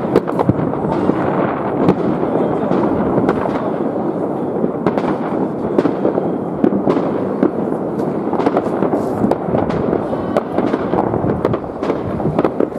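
Many aerial fireworks bursting at once: a continuous din of overlapping booms and crackling, with frequent sharp bangs scattered throughout.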